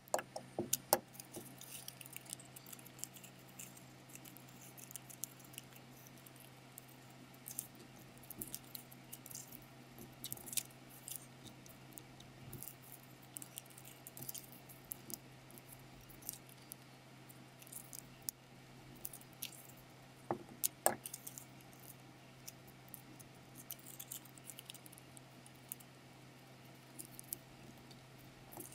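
Origami paper being handled, glued and folded by hand: quiet rustling and crinkling with scattered small clicks, and a few sharper taps near the start and again about twenty seconds in. A steady low hum runs underneath.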